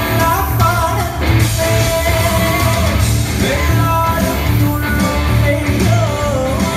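Loud music with singing over a steady bass beat.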